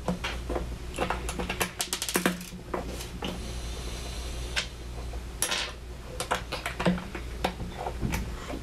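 Plastic LEGO bricks clicking as they are pulled apart and pressed together by hand, in irregular clicks with a quick run of them about two seconds in.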